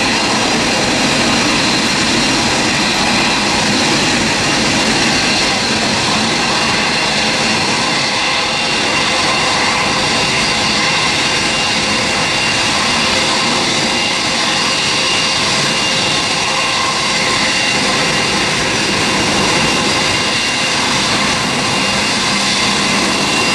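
Boeing 777's twin jet engines running steadily at low taxi power as the airliner turns onto the runway and lines up, with an even rush and a thin steady high whine over it.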